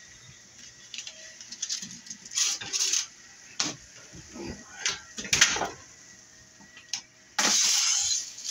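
Oven door and a foil-lined baking pan being handled as the pan is pulled from the oven: scattered clicks, knocks and clatters. Near the end comes a louder rustling scrape lasting about a second as the pan is set on the counter.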